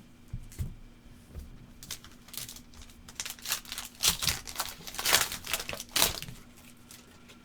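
Crinkling and tearing of a trading card pack's wrapper being ripped open, in a run of crackly bursts from about two seconds in, loudest just after the middle, after a few light knocks at the start.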